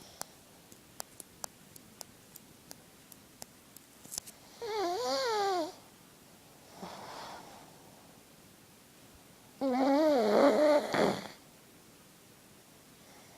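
Pug snoring in its sleep: two loud snores whose pitch wavers up and down, one about five seconds in and a longer one near the ten-second mark, with a fainter breath between them. Faint regular clicks come before the first snore.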